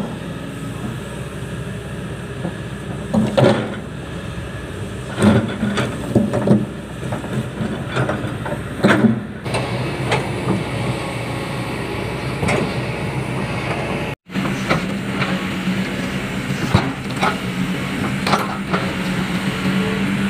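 Kobelco SK200 hydraulic excavator running steadily while it works, with repeated sharp clunks and knocks as its bucket and tracks shift limestone rocks. The knocks come mostly in the first half. After a brief gap in the sound about two-thirds through, the engine tone is steadier with fewer knocks.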